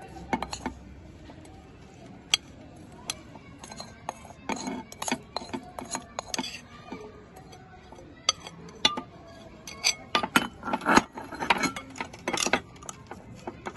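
A spoon scraping a serving dish and clinking against a glass jar as garlic pickle is spooned in and packed down. The sound is irregular clinks and taps, busiest about four to six seconds in and again about ten to twelve seconds in, where the loudest strikes fall.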